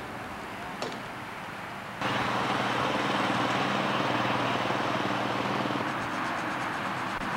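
A ride-on miniature railway locomotive passing on the track: about two seconds in, the sound jumps suddenly from a quiet background with a couple of faint clicks to a louder, steady mechanical hum and rumble of the running train.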